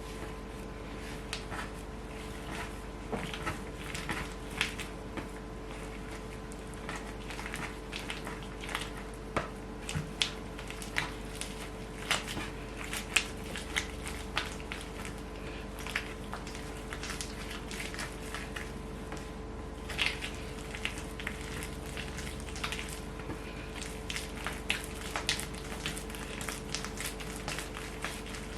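Hands working bread dough on a work surface: irregular light taps and soft handling noises, over a steady electrical hum.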